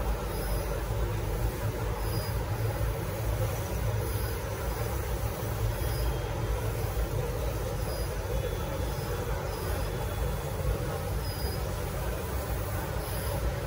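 Steady hum and noise of a FEDAR FD61915A 15-head wide-format dye sublimation printer running.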